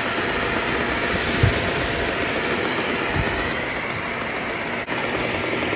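Shark Detect Performance Lift Away upright vacuum running on Detect mode with its motor and brush roll going steadily, a faint high whine over the airflow. A couple of dull knocks come through about a second and a half and three seconds in.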